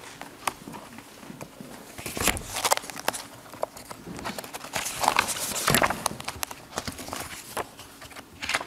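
Sheets of paper rustling and being shuffled on a lectern, with scattered knocks and taps picked up by the podium microphones. The loudest bursts come about two seconds in and again about five seconds in.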